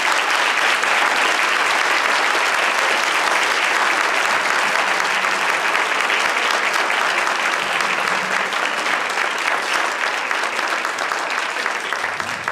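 Audience applauding steadily for the speaker at the end of his speech, fading a little near the end.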